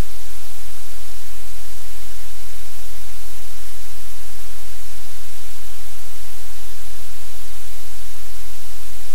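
Loud, steady static-like hiss with a low hum underneath, unchanging throughout.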